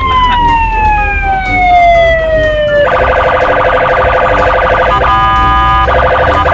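Police siren: a quick rise, then one long slow falling wail over about three seconds. It then switches to a fast pulsing yelp, holds steadier for about a second, and goes back to the fast pulses.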